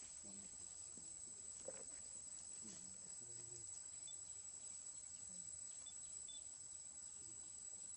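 Faint, steady high-pitched insect drone in forest, with a few soft, short sounds beneath it.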